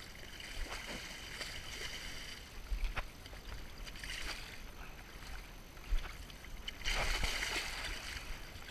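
Hooked coho (silver) salmon thrashing and splashing at the surface of shallow river water. The splashing grows louder about seven seconds in, with a couple of sharp knocks along the way.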